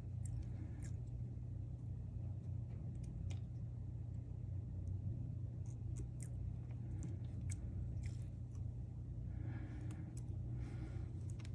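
Scattered small clicks and light taps from handling small parts and tools at a repair bench, over a steady low electrical hum.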